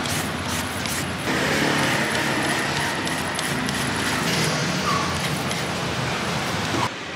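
Quick scraping strokes of a hand-held julienne peeler shredding green papaya and carrot into strands, against steady street traffic noise.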